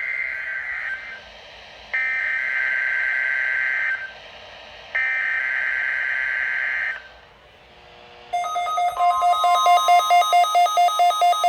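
NOAA Weather Radio's SAME digital alert header: three harsh, buzzy data bursts of about two seconds each, with a second's pause between them. About eight seconds in, the warning alarm tone starts: a steady high tone, about 1050 Hz, with a rapid pulsing beep at about four a second sounding along with it.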